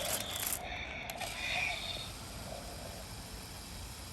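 Small geared electric motor of a remote-control velociraptor toy whirring and clicking as its legs walk, in pulses roughly a second apart.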